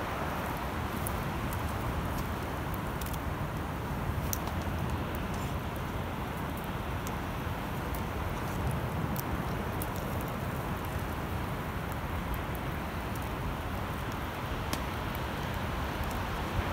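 Wood campfire crackling, with sparse sharp pops over a steady rushing background noise.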